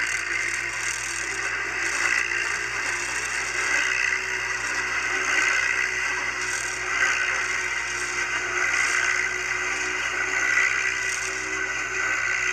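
Off-road vehicle engine running steadily while driving over snow, its pitch wavering slightly.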